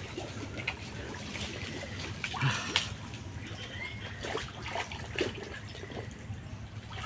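Shallow muddy swamp water sloshing and splashing as a man wades and moves his hands through it, with scattered short splashes, a couple of them louder a little before the middle.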